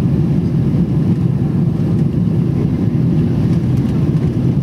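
Steady low rumble of cabin noise inside a Boeing 777 airliner on its approach to land: engine noise and airflow heard through the fuselage, with no sudden events.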